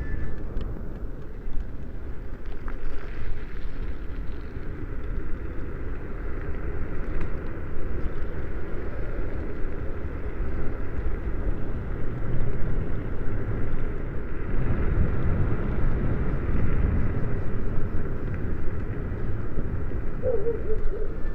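Wind buffeting the microphone and rumbling road noise while a 72-volt electric hub-motor mini bike is being ridden, with a faint steady whine.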